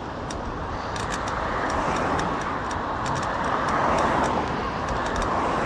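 Road traffic on a wet road heard from a moving bicycle: the hiss of tyres and engines swells and fades twice as vehicles pass, over a steady low rumble, with scattered light ticks throughout.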